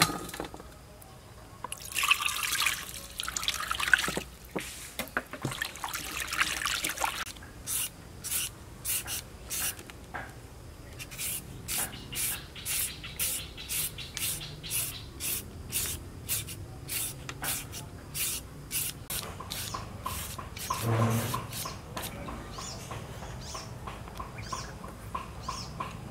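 Water splashing as shrimp are rinsed in a metal strainer for the first few seconds, then a long run of short scraping strokes of a blade on a green papaya, about two a second.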